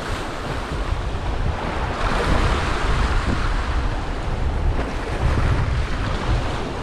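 Sea swell surging and washing against rocks, with wind buffeting the microphone in a low rumble. A louder wash of surf swells up about two seconds in.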